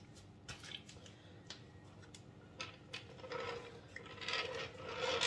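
Cake-decorating handling noises: a few light taps, then from about three seconds in a longer rustling scrape as a plastic piping bag of cream is squeezed around the top of a layer cake and the cake turntable is turned.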